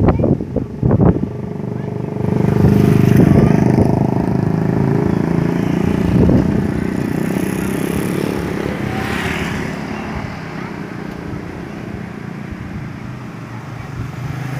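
A motorcycle engine runs steadily with a low hum. It grows louder about two seconds in and then slowly fades.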